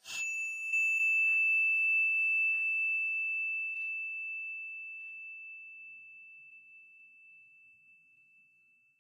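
A single bell-like chime struck once at the start, ringing on one high tone that fades slowly away over about nine seconds, with a few faint soft hits in the first four seconds. It is an intro sound effect.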